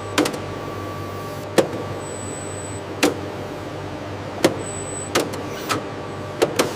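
Factory machinery running with a steady hum, cut by sharp mechanical clicks or clanks about every second and a half at first, then closer together near the end.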